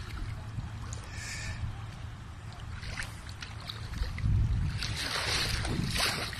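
Shallow seawater lapping and splashing close to the microphone, over a constant low rumble. The splashing grows louder and busier about four and a half seconds in.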